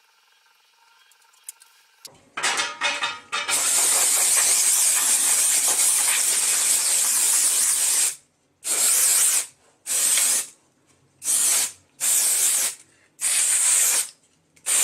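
Aerosol spray can hissing: a few brief sputters, then one long spray of about four seconds, followed by several short bursts under a second each.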